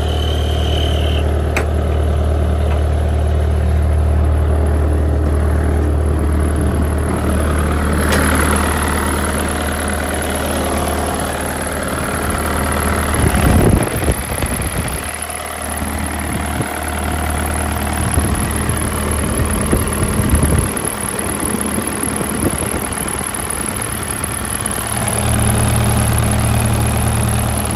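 Kubota diesel engine of a 2007 Bobcat 331 mini excavator idling smoothly and steadily, with a few brief knocks about halfway through.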